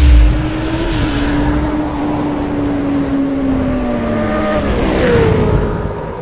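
A road vehicle running, with heavy wind rumble on the microphone. A steady engine whine sags slowly in pitch, then jumps higher about five seconds in and eases back down.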